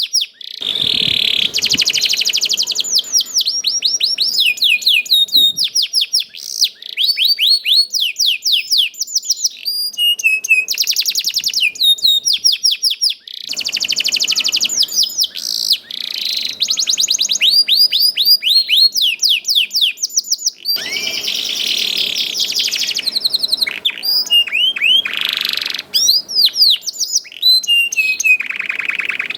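Domestic canary in full song: long runs of fast trills and quickly repeated sweeping chirps, with only brief pauses between phrases.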